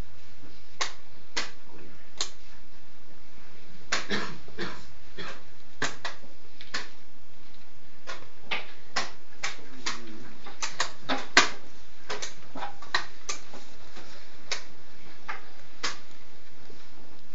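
Irregular sharp clacks of wooden chess pieces being set down on the boards and chess clocks being hit in rapid chess play, sometimes two or three in quick succession, the loudest about eleven seconds in.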